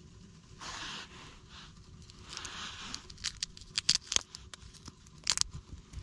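Hands handling something at close range: two short tearing or scraping hisses, then a run of sharp clicks and crackles.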